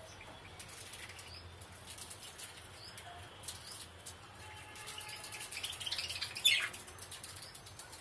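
Flock of budgerigars chirping, with wing flutters; a louder burst of chirping comes about six and a half seconds in.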